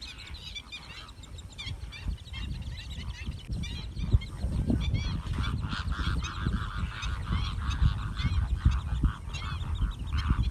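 A flock of greater flamingos honking, with many short calls overlapping and growing busier about four seconds in.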